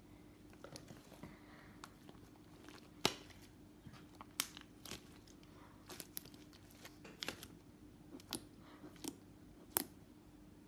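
Very sticky glossy butter slime being squished and pulled by hand: irregular sticky clicks and pops as it pulls apart, a few of them sharper and louder.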